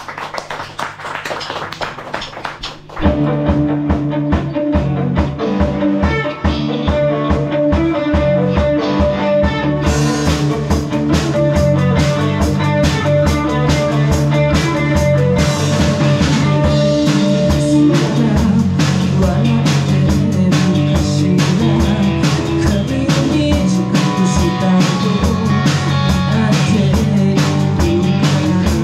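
Rock band playing live: about three seconds of a thinner guitar passage, then the drums and the full band come in with a steady beat. The cymbals brighten the sound from about ten seconds in.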